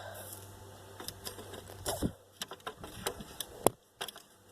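A stick stirring a bowl of water, giving light irregular clicks and knocks against the bowl, with one sharper knock near the end.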